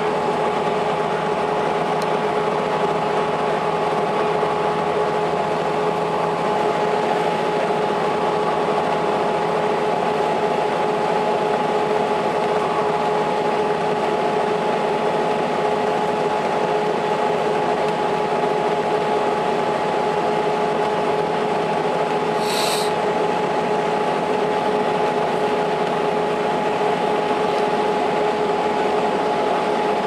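Interior running noise of a 2002 Blue Bird CS school bus with a Cummins ISL9 inline-six diesel and Allison B400R automatic: a steady rumble and road noise with a constant whine. A short hiss about 22 seconds in.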